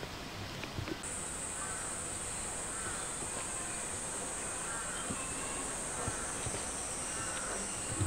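Cicadas buzzing: a steady, high-pitched drone that starts about a second in and holds without a break.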